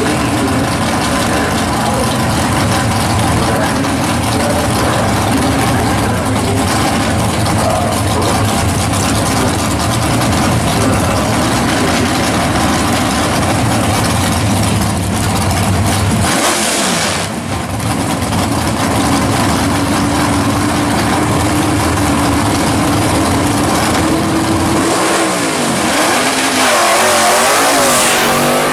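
Drag-racing car engines, a first-generation Chevrolet Camaro's among them, running loud at the starting line. They hold a steady pitch, then rev up and down near the end as the cars launch down the strip.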